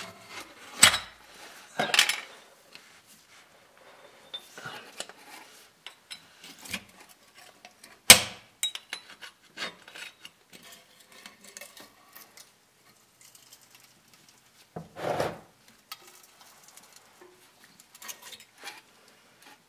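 Scattered metallic clinks, taps and scrapes of hand tools (a wrench and a putty knife) working at the lower edge of a differential cover, with a sharper clink about eight seconds in and a short rubbing sound near fifteen seconds.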